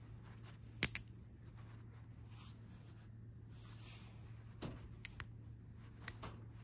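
Black Spyderco folding knife being opened and closed by hand. A sharp snap about a second in as the blade swings out and locks, a few lighter clicks around the middle as the lock is released, and another sharp snap near the end as the blade shuts.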